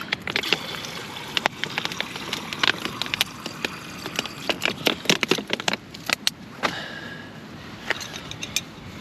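Camp cooking gear being handled: many irregular clicks, knocks and rattles, thickest in the middle, over a steady rushing noise.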